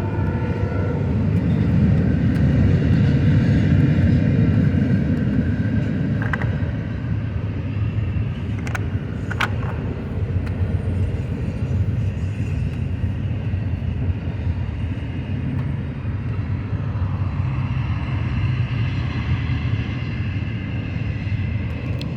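A vehicle running, a steady low rumble that swells for a few seconds early on and then holds level. A horn-like tone dies away in the first second.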